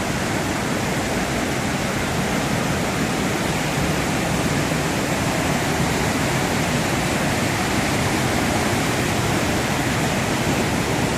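Waterfall in flood after heavy rain, a large volume of water crashing down in a steady, loud rush.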